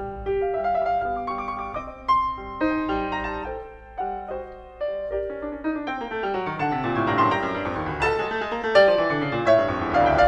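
Background piano music: a solo piano plays a melody over chords, the notes growing fuller and a little louder in the second half.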